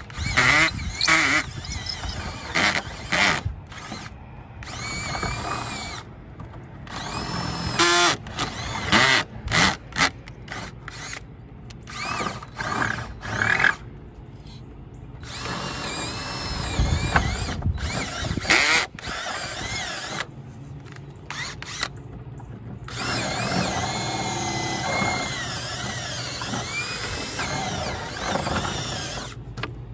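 Cordless drill with a 13/32-inch bit boring a series of holes through the wooden roof sheathing to form a slot. It runs in repeated bursts, its pitch rising and falling as it speeds up and slows, with short pauses between bursts.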